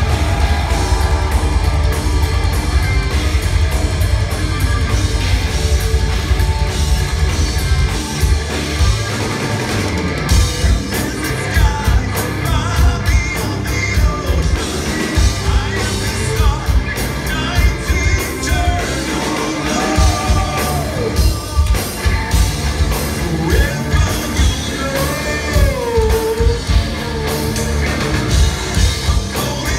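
Live progressive metal band playing at full volume through a concert PA: a singer's voice over electric guitars, bass, keyboards and drums.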